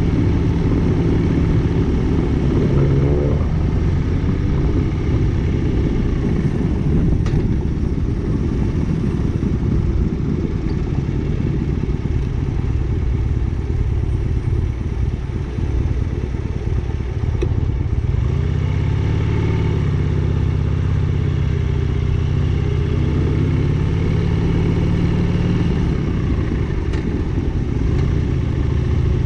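Motorcycle engine running under way. Its note rises and falls around the third second, and again for several seconds in the second half, as the speed changes.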